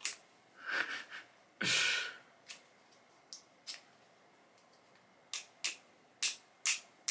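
Small ferrocerium-rod fire starter being struck over and over: irregular short scrapes and clicks of the striker on the rod, with several quick strikes near the end. The rod is not giving a good spark.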